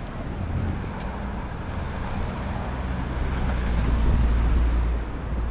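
City avenue traffic, with a motor vehicle's low engine rumble swelling and at its loudest about four seconds in.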